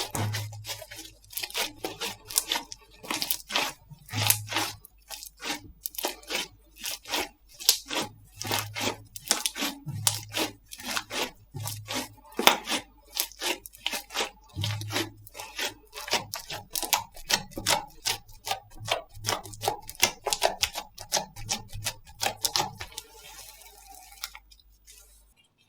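Slime being squeezed and poked by hand, making rapid sticky pops and clicks, several a second, with occasional soft thuds; the sound stops abruptly near the end.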